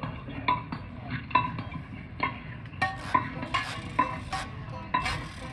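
Marching band metal percussion struck in a steady pulse of about two strikes a second, each with a short metallic ring; from about halfway in, brighter, sharper metal hits join.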